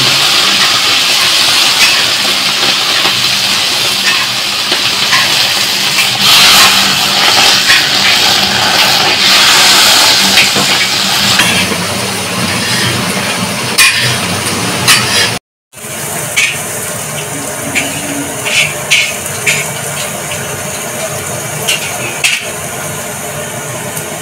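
Cauliflower frying in hot oil in a large iron kadai: a loud steady sizzle with a low hum underneath, dying down after about eleven seconds. After an abrupt cut it turns quieter, with a few sharp clicks and the rustle of plastic packets being handled.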